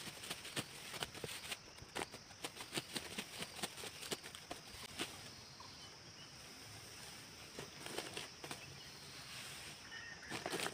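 Rice stalks being cut by hand with a sickle: quick, irregular clicks and rustles of the stalks, thick for about five seconds, then sparser, with a brief louder cluster near the end.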